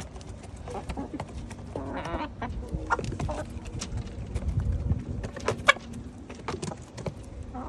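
Backyard hens clucking with short calls while pecking at a pumpkin, with many quick taps and clicks of beaks striking the shell and seeds.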